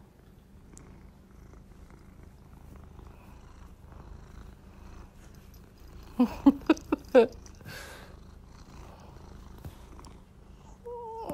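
Domestic cat purring steadily, close to the microphone. About six seconds in comes a quick run of five short, loud chirps, and near the end a falling meow begins.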